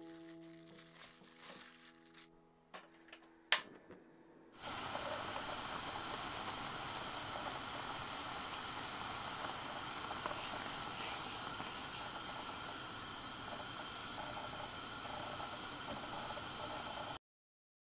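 Strawberry and blueberry jam boiling in a pot, a steady bubbling hiss. It starts about four and a half seconds in, just after a sharp click, and cuts off suddenly near the end. Before it, the last notes of soft background music fade out.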